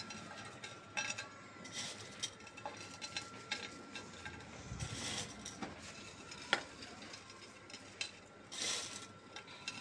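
Faint kitchen handling sounds: soft rustles and scattered light clicks as chopped greens are sprinkled by hand onto a yogurt-covered plate, the sharpest click about six and a half seconds in. A faint steady high whine sits underneath.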